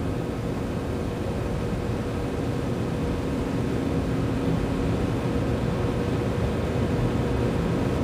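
Steady background hiss with a faint electrical hum, unchanging throughout. No tool or metal-on-metal sounds stand out.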